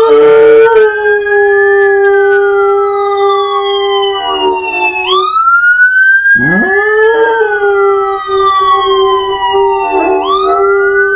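A pit bull mix dog howling along with a wailing siren. The dog gives long howls, each rising quickly and then held at one steady pitch, with a break about five seconds in before the next. The siren rises and falls slowly, about once every five seconds.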